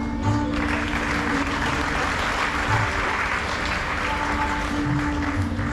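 Audience applauding, starting about half a second in and thinning near the end, over background music.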